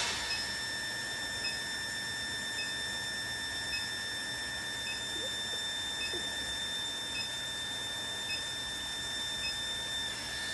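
Induction melting furnace whining: a steady high-pitched tone with fainter higher tones above it, and faint short blips repeating about once a second.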